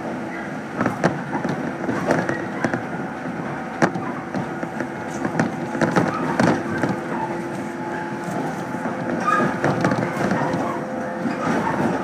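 Inside a 115-series electric train car while it runs: a steady hum from the running gear under irregular clicks and rattles from the car body and the rails.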